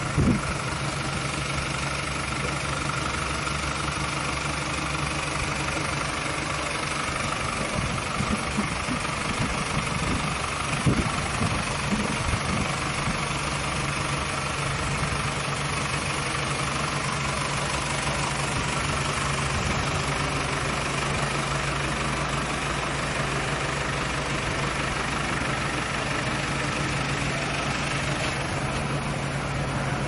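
An engine idling steadily, a constant low hum, with a few brief knocks at the start and again about eleven seconds in.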